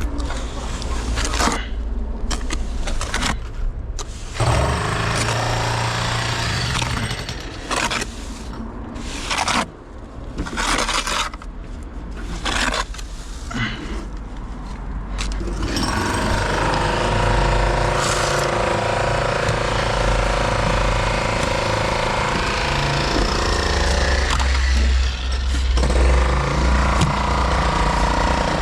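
Jackhammer running in short stop-start bursts for about the first fifteen seconds, then without a break for the rest.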